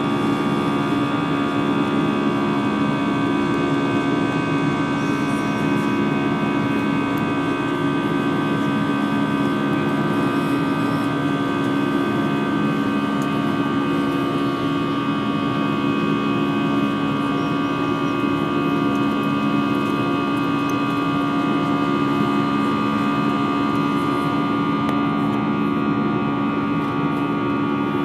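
Airbus A320 cabin noise in flight: a steady drone of engine hum and airflow, with several steady tones held throughout.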